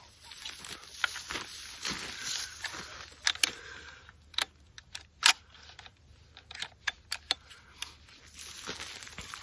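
Rustling of clothing and gear as a scoped rifle with a bipod is swung off the shoulder, then a series of sharp clicks and light rattles from handling the rifle, a dozen or so spread over several seconds.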